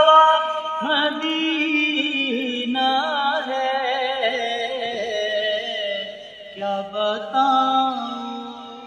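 Male voice singing a naat, an Urdu devotional song, in long held notes with a wavering, ornamented pitch; it fades toward the end.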